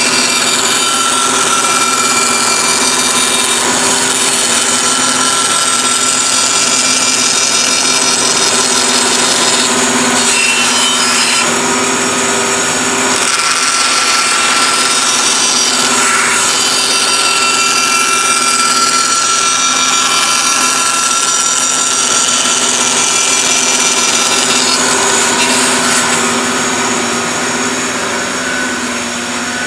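Power tool running steadily while cutting wood.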